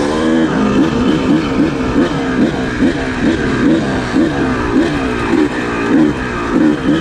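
Dirt bike engine running, heard from on the bike, its revs rising and falling about twice a second over a noisy rush.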